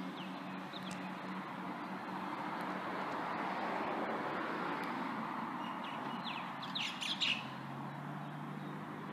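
Comeng electric suburban train pulling out of the station and moving away, a steady rumble of wheels on track that builds and then eases. Birds chirp briefly, loudly, about seven seconds in.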